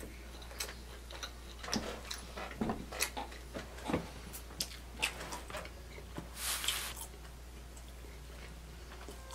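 Mouth noises of someone chewing a mouthful of pizza: soft, irregular clicks and smacks, with a breath about six and a half seconds in.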